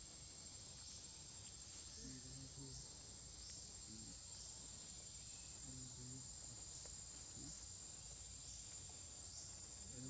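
Steady, faint high-pitched insect chorus, a constant buzzing trill with soft repeating pulses about once a second. Faint human voices speak a few short phrases now and then underneath.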